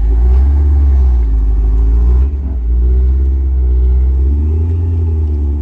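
Dinan-supercharged BMW E39 M5 V8 pulling away and accelerating, a loud low exhaust note whose pitch rises and falls, with a brief drop about two seconds in.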